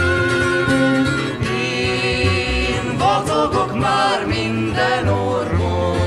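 Background country-style string-band music with plucked strings and a steady bass line.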